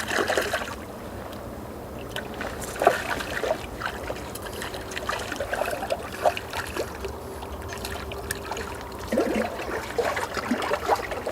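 Water splashing and sloshing, with irregular small knocks and clicks.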